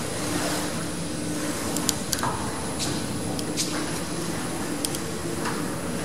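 Lift car running in its shaft, heard from the car roof: a steady mechanical hum with a low drone, and a scattering of light clicks and ticks.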